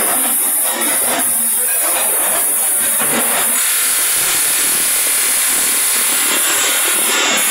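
Automatic rotary polishing machine running, its polishing wheel working a spinning stainless steel mug body with a steady, loud hiss.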